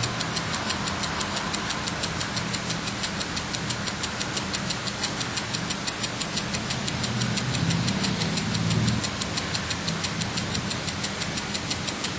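Mechanical clock movement running, with rapid, even ticking over a low mechanical hum.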